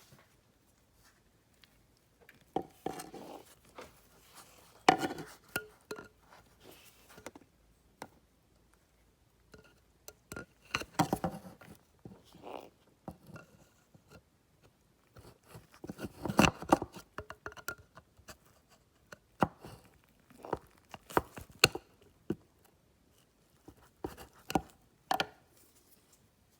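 Hands working with wiring and plastic connectors: scattered clicks, knocks and rustling in irregular clusters, with quiet gaps between.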